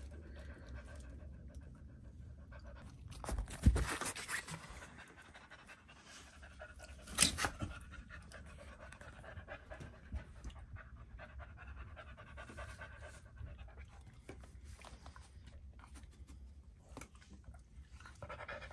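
American Cocker Spaniel panting steadily, with two brief loud knocks about three and a half and seven seconds in.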